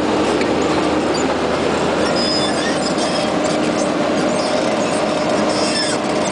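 Vermeer D24X40A horizontal directional drill's diesel engine running steadily while the crawler-tracked machine drives and turns, with brief high squeaks twice, about two seconds in and near the end.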